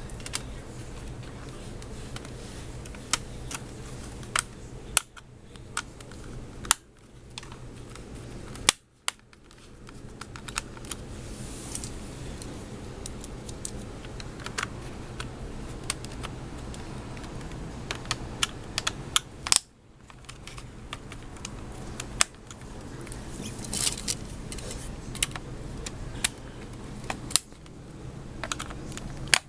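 Irregular small clicks and taps of laptop plastic parts and screws being handled and fitted during reassembly, over a steady low hum.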